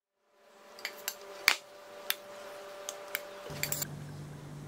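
Metal ladle and steel mixing bowl clinking against each other and the aluminium baking tray as white sauce is ladled out, several sharp clinks with the loudest about a second and a half in. A steady low hum comes in near the end.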